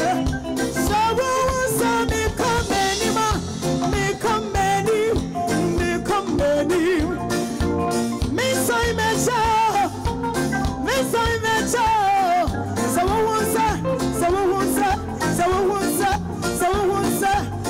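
Live gospel band music with a woman singing lead over a steady drum beat and the band.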